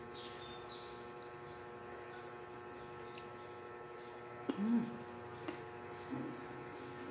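Steady electrical hum. About four and a half seconds in comes a sharp click and a short hummed 'mm' from a person eating, then a couple of small clicks.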